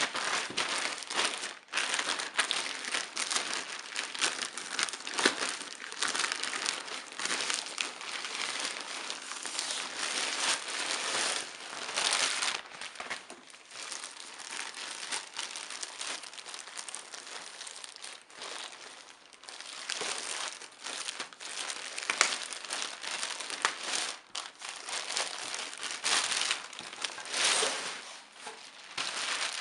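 Plastic packaging crinkling and rustling as a grey plastic courier mailer and a clear plastic bag are handled and pulled open, with frequent louder crackles.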